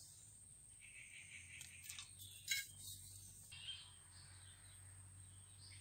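Faint outdoor background of insects chirring, over a low steady hum, with a few soft ticks.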